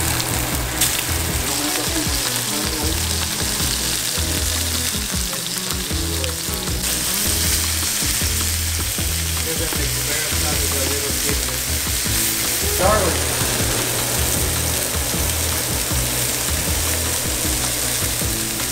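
Pieces of cubera snapper searing in oil in a frying pan, sizzling steadily.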